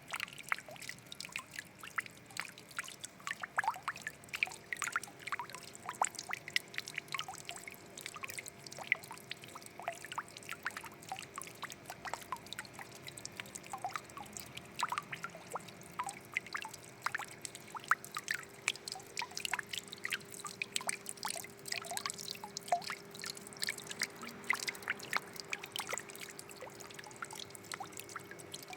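Water trickling and dripping: a continuous, irregular patter of small drops and splashes with plinking droplet sounds. A faint steady hum comes in about four seconds in.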